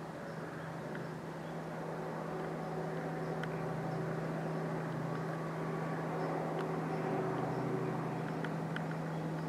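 A distant engine humming steadily, slowly growing louder over the first few seconds, with a few faint clicks.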